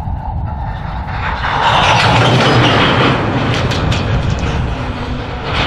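Norfolk Southern freight cars rolling slowly through a switching move, a steady rumble of wheels on rail that swells to its loudest about two seconds in, with a few sharp clanks a second or so later.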